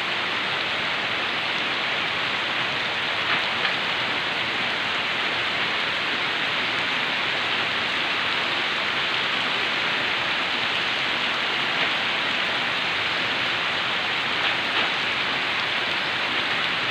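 Heavy, steady rain falling without wind or thunder: an even, dense hiss, with a few distinct drops ticking here and there.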